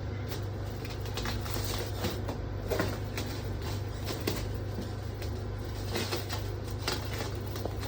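Scattered light clicks and knocks, like objects being handled, over a steady low hum.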